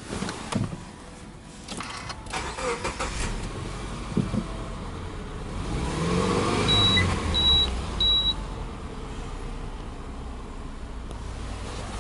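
Subaru Legacy 2.0i's flat-four boxer engine starting: after a few clicks and knocks, it cranks, catches about six seconds in and revs up, then settles into a steady idle. Three short high beeps of the car's door-open warning chime sound as it catches.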